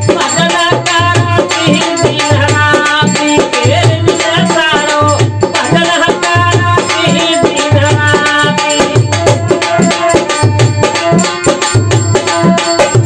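Rajasthani devotional bhajan music: a dholak drum keeping a steady beat under a sustained harmonium melody, with quick rattling hand percussion.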